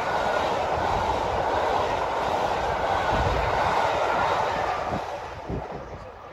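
A train running past on the rails, a steady rushing noise of wheels on track that fades away about five seconds in as it moves off.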